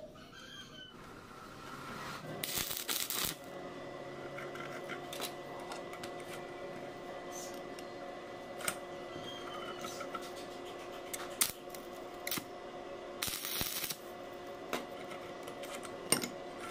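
Metal handling: a threaded steel rod and its hex nut shifted and turned in the jaws of a bench vise, giving scattered metallic clicks and two brief scraping rasps, over a steady hum.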